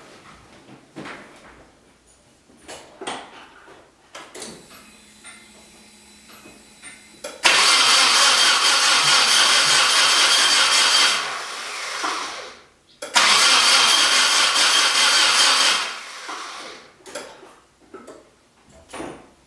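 Nissan 240SX starter motor cranking twice, for about three and a half seconds and then about three seconds, with a loud steady whir that stops each time with no engine catching. The car fails to start after a new clutch and flywheel were installed.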